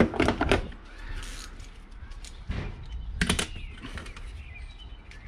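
Hand tools being handled: a few sharp clicks and knocks at the start, once more about two and a half seconds in, and a quick group just after three seconds. Faint birdsong chirps in the background in the second half.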